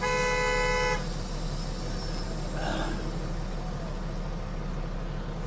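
A vehicle horn sounds once for about a second, over the low steady rumble of the semi-truck's idling engine heard from inside the cab.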